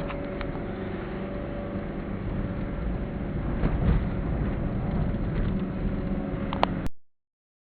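A 1990 Chevrolet Monza SLE 2.0 being driven: its 2.0 four-cylinder engine hums steadily under road noise, with a few light knocks. The sound cuts off suddenly near the end.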